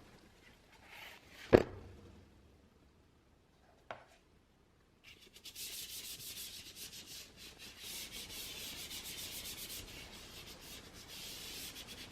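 A sharp tap about one and a half seconds in and a fainter click near four seconds, then from about five seconds a fast, high-pitched scratchy rubbing, as of something being rubbed or scraped against packaging.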